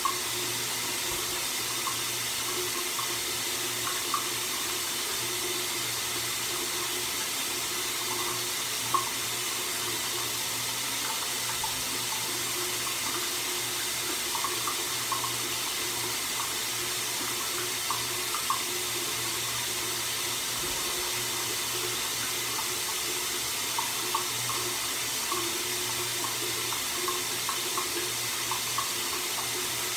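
Steady rush of running water from a bathroom tap or shower, with a low hum underneath.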